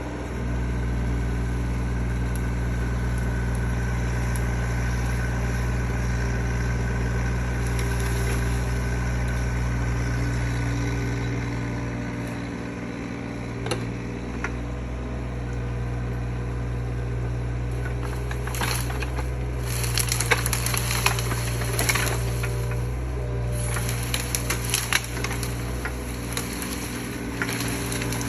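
Mini excavator engine running steadily. From about two-thirds of the way in, a dense run of sharp cracks and snaps: wood and brush breaking as the grapple handles it.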